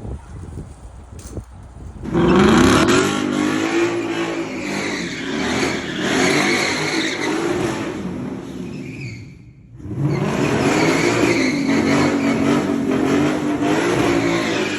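BMW M8 Competition's twin-turbo V8 with M Sport exhaust pulling hard under acceleration. A quiet low rumble gives way about two seconds in to a sudden loud, rising engine note. The note breaks off briefly past the middle, then comes back strongly for a second pull.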